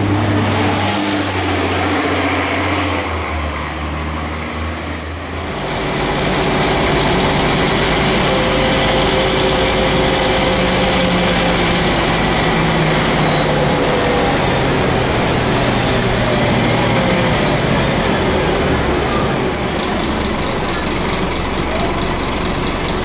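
Scania N310UA articulated bus. For the first few seconds its engine runs at a stop with a high whine over it. About five seconds in it gives way to the steady engine and road rumble heard riding inside the bus, the engine pitch rising and falling as it drives.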